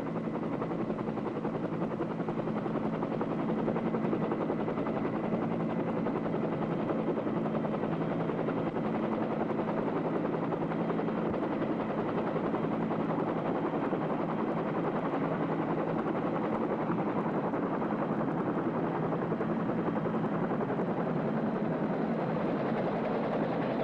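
UH-1 Huey helicopter running steadily as it flies in on approach, its turbine and rotor making a constant drone with a steady low hum.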